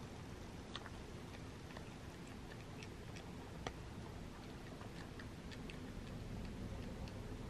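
A cat crunching dry snacks from a bowl: irregular, crisp little crunches and clicks, several a second, over a faint steady hiss.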